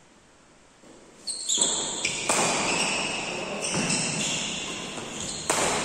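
Badminton rally: rackets hitting the shuttlecock in sharp, echoing smacks, about six over a few seconds, starting about a second and a half in. High squeaks of shoes on the court mat come in between the hits.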